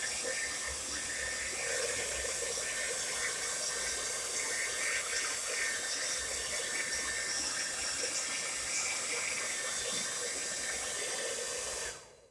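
Tresemme Salon Smooth Professional hair dryer running with a steady rush of air, stopping abruptly near the end.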